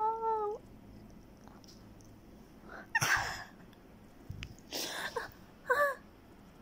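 Persian kitten meowing: a drawn-out meow that ends about half a second in, then a short meow near the end. Two brief breathy bursts come in between.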